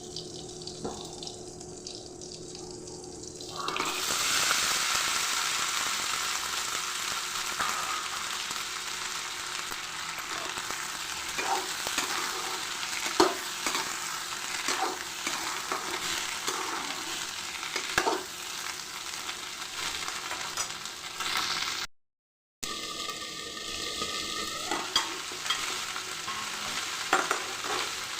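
Food frying and sizzling in hot oil in a pan, stirred with a spoon that clicks and scrapes against the pan now and then. The sizzle gets suddenly louder about four seconds in, and the sound cuts out briefly about three-quarters of the way through.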